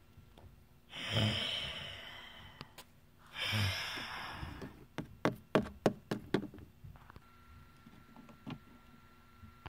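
A person sighs twice with long breathy exhales, then comes a quick run of light clicks and taps as a plastic toy figure is handled against small wooden doll furniture.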